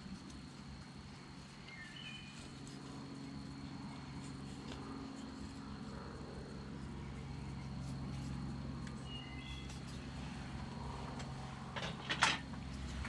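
Flexible-shaft rotary carving tool running at a steady pitch, its coarse burr grinding wood. A couple of sharp knocks near the end as the camera is bumped.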